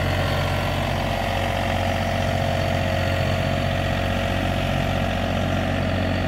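John Deere 3025E compact tractor's three-cylinder diesel engine running steadily as the tractor drives off slowly across paving.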